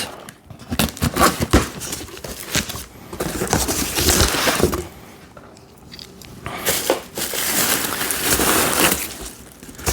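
Cardboard shipping box being opened by hand: flaps and packing material rustling and crinkling in uneven bursts with a few knocks, easing off for a moment midway.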